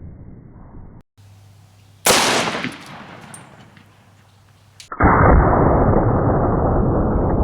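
A single .44 Magnum shot from a Ruger Super Redhawk revolver about two seconds in, dying away over about a second. From about five seconds in, a loud steady rushing noise follows.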